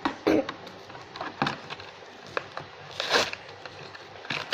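Hot Wheels blister card being opened by hand: irregular crackling and clicking of plastic and cardboard, with two louder tearing crackles, one just after the start and one about three seconds in.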